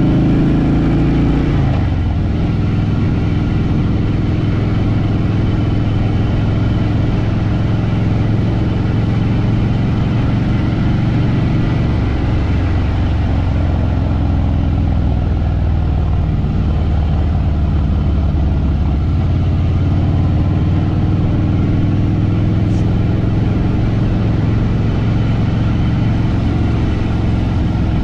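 Harley-Davidson Fat Boy Lo's V-twin engine running steadily under way while riding, its note shifting about a second or two in.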